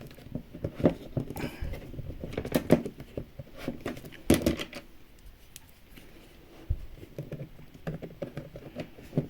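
Irregular light taps, clicks and rustles of small plastic and card miniature toy parts being handled and pressed into place, with a sharper click about four and a half seconds in.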